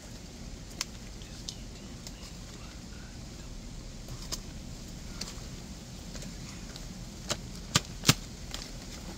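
Quiet steady outdoor background with a few scattered sharp clicks or taps, the loudest two close together about eight seconds in.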